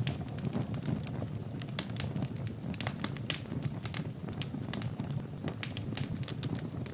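Fire burning in a fireplace, crackling with frequent irregular sharp pops over a steady low rumble of the flames.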